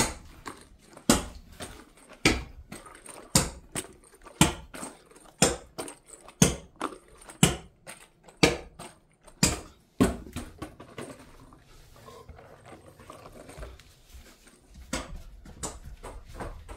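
Rubber toy ball bouncing on the floor, a sharp knock about once a second with lighter ticks between. The knocks stop about ten seconds in, leaving softer scuffling.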